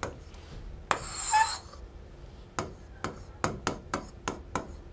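Stylus tapping and scraping on the glass of an interactive display as words are handwritten. There is a longer scratchy stroke about a second in, then a run of sharp taps, about three or four a second.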